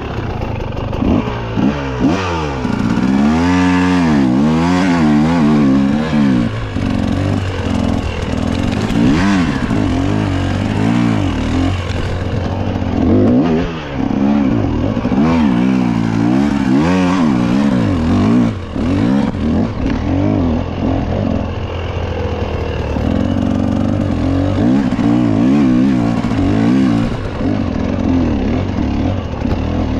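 Mountain bike ridden at race pace over rough trail: tyre rumble and drivetrain and frame clatter, with a buzzing tone whose pitch wavers up and down as the speed changes.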